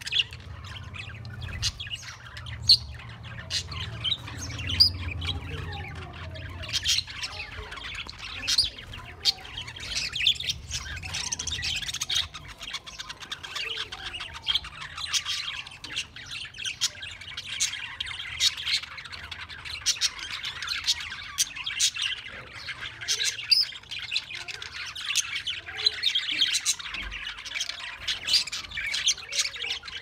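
A flock of budgerigars in an aviary chattering without a break: a dense mix of fast chirps, warbles and harsh squawks from many birds at once. A low hum sits under the chatter for roughly the first twelve seconds.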